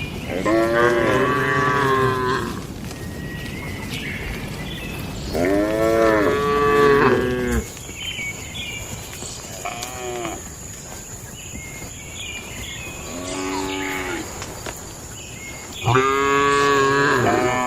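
Cattle mooing: five separate calls a few seconds apart, most of them long and drawn out, with a short one in the middle; the last runs into the end.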